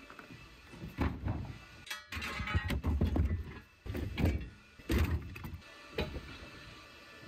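Irregular thuds and metal clatter of tools being rummaged in a toolbox, with a denser run of rattling about two to three seconds in.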